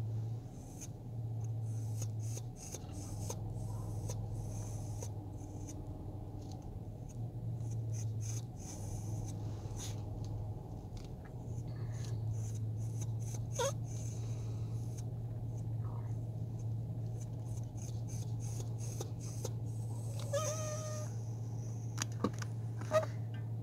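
A vehicle's engine running with a steady low hum as it creeps along. In the second half a pet inside gives a few short whining cries: one rising, and one held a little longer. There are a couple of sharp clicks near the end.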